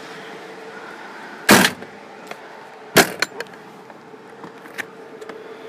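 Ambulance side compartment door shut with two loud bangs about a second and a half apart, then lighter clicks as a compartment latch handle is turned.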